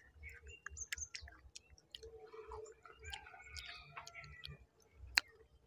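A person chewing soft pieces of chopped mango, with faint wet mouth clicks and smacks, and one sharper click near the end.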